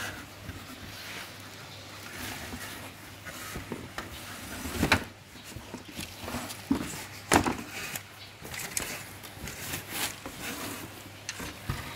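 Non-woven fabric wrapping and a cardboard box being handled and pulled open by hand: irregular rustling and rubbing, with a few sharp knocks, the loudest about five and seven seconds in.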